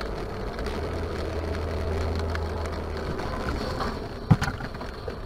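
Steady driving noise inside a moving car on a wet road, mostly a low hum, with a single sharp knock a little past four seconds in.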